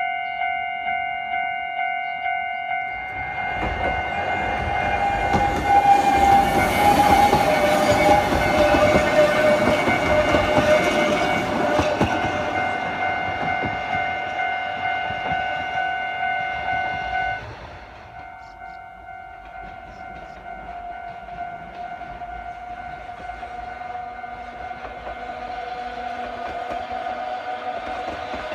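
Japanese level-crossing warning bell ringing steadily at about two strokes a second, while a narrow-gauge electric train rushes past from about 3 s to 13 s with rail clatter. The sound cuts off suddenly near 17 s; a fainter crossing bell then keeps ringing as another train draws near.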